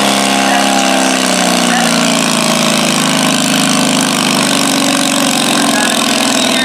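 Cub Cadet garden tractor's engine running hard under heavy load through its straight upright exhaust stack as it drags a stoneboat pulling sled. Its pitch sags about a second in as the load builds and the engine lugs down, then holds steady.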